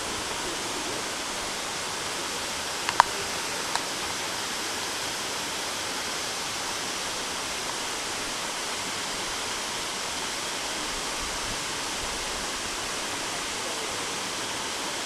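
Waterfall rushing steadily. Three short, sharp clicks about three seconds in, the middle one loudest.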